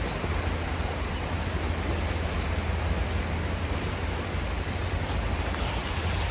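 Steady heavy rain falling, an even hiss with a deep low rumble beneath it.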